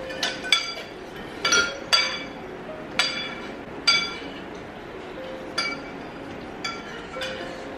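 Metal spoons clinking against soup bowls as several people eat, about ten sharp ringing clinks at an irregular pace, some in quick pairs.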